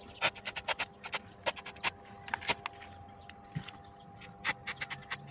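Short sharp ticks and clicks at an uneven pace, a few a second, as a can of glue activator spray is worked against a plastic car door pocket close to the microphone. A faint steady hum runs beneath.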